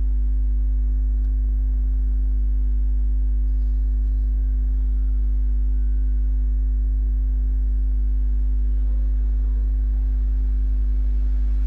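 Steady low electrical mains hum, with a fainter steady higher tone above it, unchanging and with no other sound over it.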